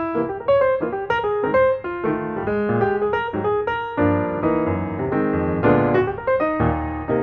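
Background music: piano playing a melody with chords in a steady rhythm.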